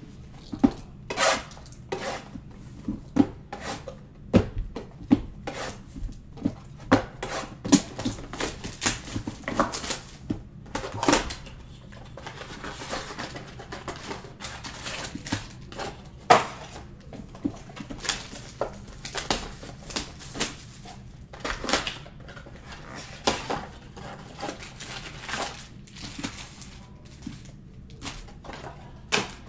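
Trading-card boxes and foil packs being handled and opened by hand: an irregular run of sharp crinkles, rips and taps of cardboard and wrapper, over a low steady hum.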